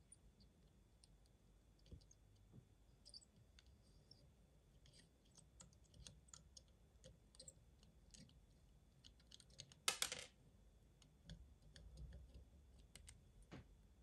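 Near silence with faint, scattered clicks and crackles from a soldering iron working the joints of a micro-USB port on a circuit board as it is desoldered, and one brief louder scraping noise about ten seconds in.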